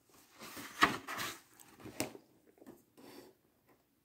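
A paper page of a picture book being turned: a rustling swish of paper with a couple of sharp clicks, then softer rubbing as the hand smooths the new page flat.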